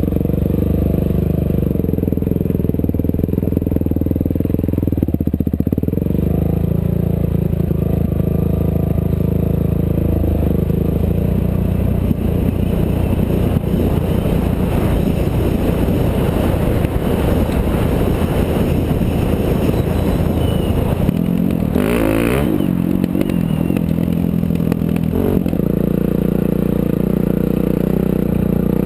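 Off-road race vehicle's engine running under way. The note is steady at first, then comes with heavy rattling and clatter through the middle stretch as it goes over rough ground. About three-quarters of the way through there is a short, loud burst of noise, and then the engine note is steady again.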